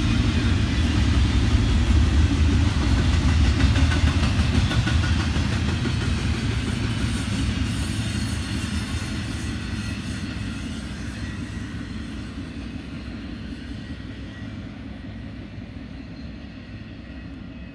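Long freight train of container cars rolling past on the rails with a low rumble that fades steadily as the train draws away.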